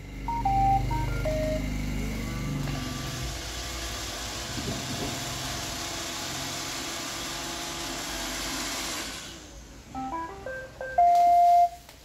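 iRobot Roomba 780 robot vacuum plays its short start-up tune of stepped beeps as its Clean button is pressed. Then its vacuum motor and brushes run steadily for several seconds and stop. Near the end it plays a second short tune of rising beeps ending in a long held note.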